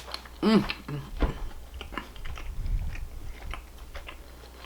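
Close-up mouth sounds of a person chewing food: wet clicks and smacks. About half a second in there is a short hummed "mm" that rises and falls, the loudest sound.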